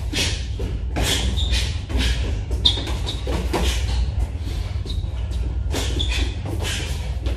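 Boxing sparring: gloved punches land in quick irregular strikes while shoes shuffle and squeak briefly on the gym floor, over a steady low hum.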